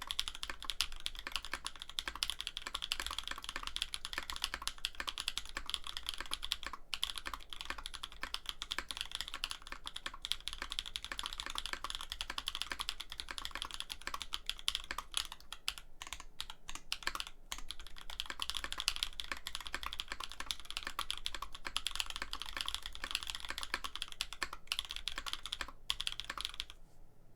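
Fast, continuous typing on a Bauer 2 mechanical keyboard with an aluminum plate and INVYR Holy Panda tactile switches, with a few short pauses; the typing stops just before the end.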